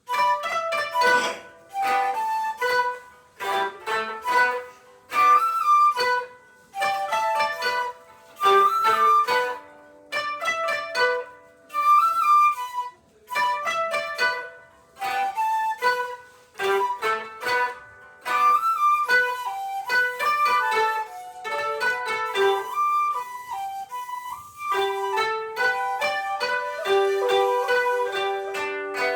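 Koto and shakuhachi playing together: short melodic phrases with quick ornamented figures, broken by brief pauses, then flowing on without breaks near the end.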